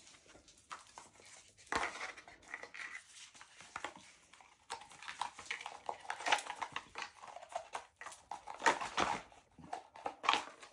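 Handling of a card deck with its box and booklet: irregular rustling, scraping and light knocks of card and paper, with louder bursts about six and nine seconds in.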